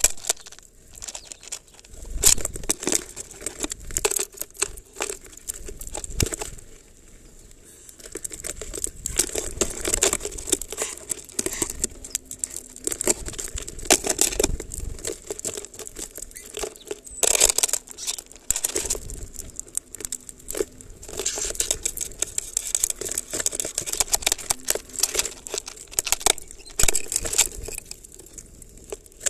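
Small birds feeding at a plastic-bottle feeder: a dense, irregular run of clicks and rustles as beaks peck and crack black sunflower seeds and shift the seeds against the plastic, with wings fluttering now and then. There is a short lull about seven seconds in.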